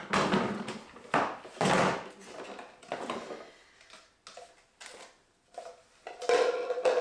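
Plastic storage totes and their lids being handled and set down, with a few sharp knocks in the first two seconds, then lighter clinks and clatter as jars and small containers go into a plastic tote.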